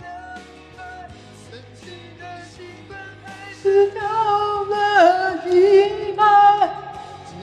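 A man singing over a pop backing track; about halfway through his voice gets much louder, with long held notes that bend and slide in pitch.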